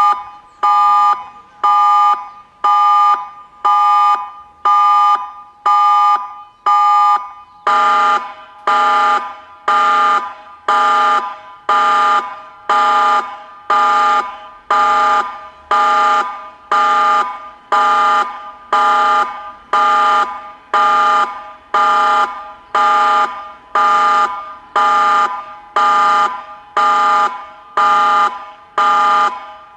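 Meerkat 4 siren sounding the Christchurch tsunami warning, a pulsing steady tone that signals tsunami danger and calls for immediate evacuation. It gives pulses of a chord of several steady tones, about one a second, and about eight seconds in the pulses turn fuller, with lower tones added.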